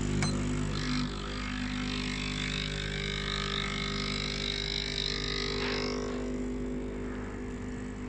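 Breville espresso machine's vibratory pump humming steadily as it forces water through a finely ground double-shot puck to pull a ristretto. A single sharp click comes just after the start, from the timer's start button, and the hum's tone shifts about a second in.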